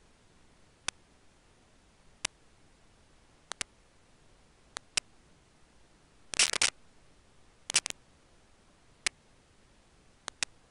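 Sharp single clicks, roughly one every second or two, over a faint steady hiss, with a quick run of clicks about six seconds in and another pair just before eight seconds.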